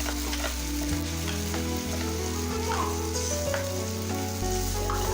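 Sliced onions and garlic sizzling in hot oil in a frying pan over high flame as the prepared sauce is poured in, with spatula stirring clicks and scrapes now and then.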